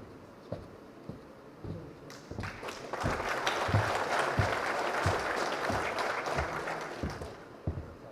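Audience applauding, swelling up about two seconds in and dying away near the end, with regular low thuds a little under twice a second running underneath.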